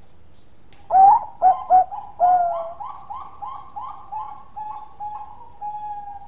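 A Bangkok-type zebra dove cooing. About a second in come three short loud notes, then a longer note, then a run of about ten quick, evenly spaced coos that grow fainter.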